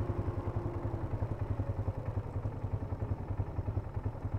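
Polaris Sportsman 570 ATV's single-cylinder engine running at low revs, a steady low pulse of about ten beats a second.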